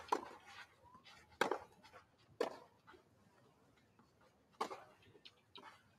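Tennis rally: racquets striking the ball back and forth, four sharp hits roughly a second or more apart, with a few fainter ticks near the end.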